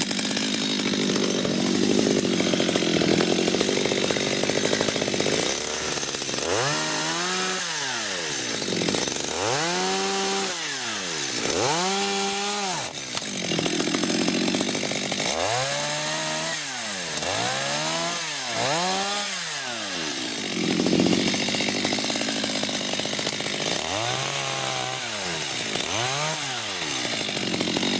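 Stihl chainsaw running and cutting wood, its engine revved up and let back down about ten times, each rev a rise and fall in pitch lasting about a second, with steadier running in between.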